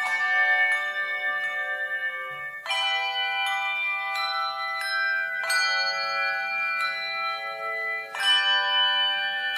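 Bell music: chords of ringing bells struck about every two and a half seconds, four times, each chord left to ring on into the next.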